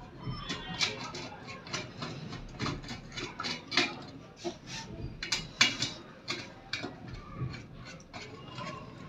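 Irregular small clicks and metallic taps, two or three a second, as the heater rod of an opened laminator is handled and fitted back into its mounts.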